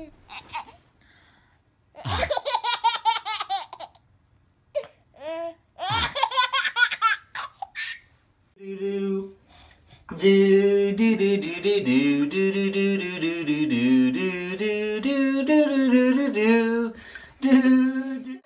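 A baby laughing in quick bursts of giggles, twice, in the first half. After that a voice sings or hums a tune in held notes that step up and down, on to the end.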